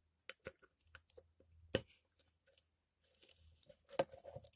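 Faint handling noise of a plastic glue bottle and mixing bowl as glue is squeezed in: scattered sharp clicks and taps, the loudest about two and four seconds in.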